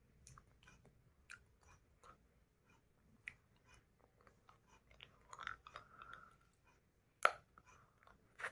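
Faint mouth sounds of a boy eating a Chupa Chups hard-candy lollipop: wet smacks and small clicks of the candy against his teeth, with one sharper click about seven seconds in.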